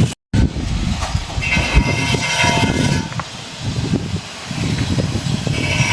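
Wind buffeting an outdoor microphone: an irregular, gusty low rumble, with a high buzzing that comes in twice.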